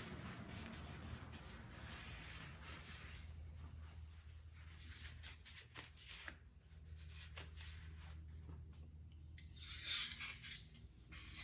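Rubbing and scraping as dirt is cleaned out of a chainsaw's clutch parts. There are scattered light clicks in the middle, and a louder stretch of scraping comes near the end.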